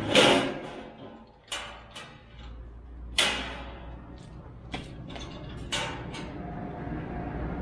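A series of sharp knocks and clunks, about six, each dying away quickly, over a low steady background hum.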